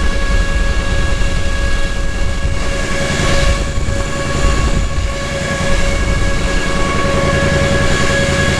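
Polaris Sportsman 1000XP's twin-cylinder engine idling, with a steady high whine over it from the newly replaced radiator fan running.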